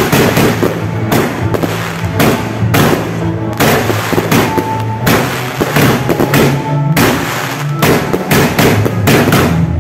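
Aerial fireworks bursting overhead in a rapid, irregular string of sharp bangs, several a second, with music playing underneath.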